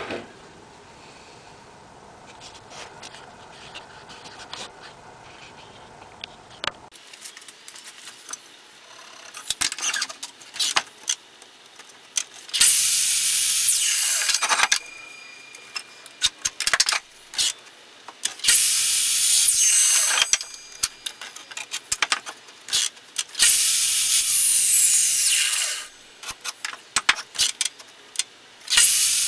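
Soft rubbing and knocks of a wooden pallet board being handled, then a Skil miter saw cutting the board: three loud cuts of about two seconds each, the blade winding down after each, a fourth starting near the end. Sharp knocks and clicks of the wood being repositioned on the saw table fall between the cuts.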